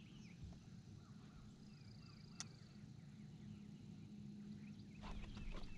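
Quiet lakeside ambience: a steady low hum under faint, scattered bird chirps, with a single sharp click a little over two seconds in.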